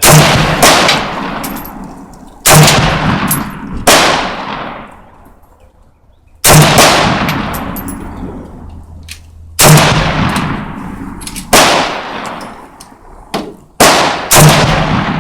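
Saiga AK-pattern semi-automatic rifle fired shot by shot, about ten loud single shots at uneven gaps of half a second to three seconds. Each shot is followed by a long echo dying away.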